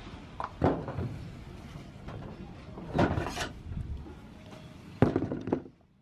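RAU 115 hand crimping tool pinching the seam of a metal roofing panel: three sudden clunks about two and a half seconds apart, each followed by a short rattle of the sheet metal.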